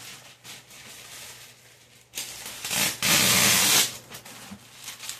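Styrofoam packing insert scraping and rubbing against the carton as it is pulled out of the LED grow light's box: soft rustling at first, then a loud, even scrape lasting just under a second about three seconds in.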